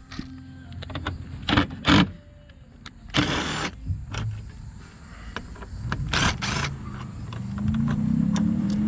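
Knocks of a tool against metal and a short burst of noise, then near the end a power tool's electric motor starts whirring steadily, backing out the bolts holding the fog light.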